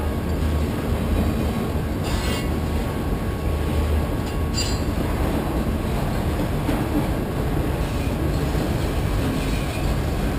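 Freight train of autorack cars rolling past, a steady rumble of steel wheels on rail, with a short high squeal about four and a half seconds in.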